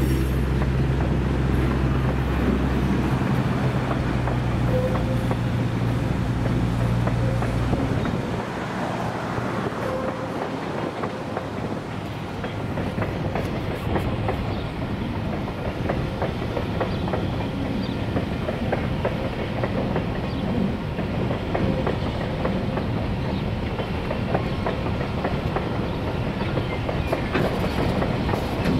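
A freight train passing on the rails: the diesel locomotive's engine running with a steady low hum that drops away about eight seconds in, then container wagons rolling by with a continuous clatter of wheels over the rail joints.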